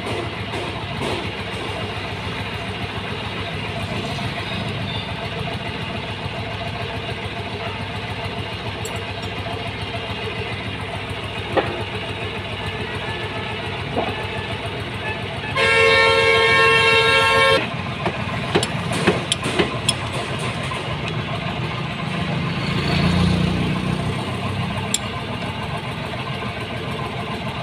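A vehicle horn sounds once for about two seconds midway, over steady background engine noise. A few sharp metallic clinks come from spanners working on the tractor's bolts.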